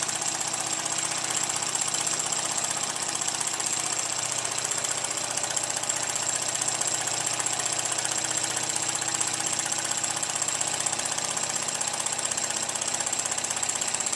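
Burnac Vulcan model steam engine on a vertical copper boiler, running fast and steadily on live steam: a rapid, even exhaust beat with a steady high-pitched tone above it.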